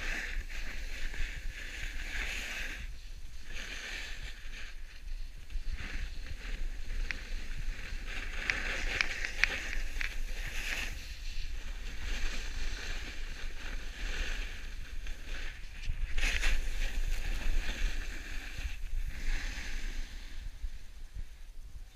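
Edges sliding and scraping over snow as the camera-wearer rides downhill, a hiss that swells and fades with each turn, with wind rumbling on the microphone. It is loudest about sixteen seconds in.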